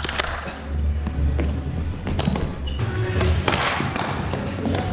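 Floor hockey play on a hardwood gym floor: hockey sticks and a hard ball clacking and knocking against the floor and each other in a string of sharp hits.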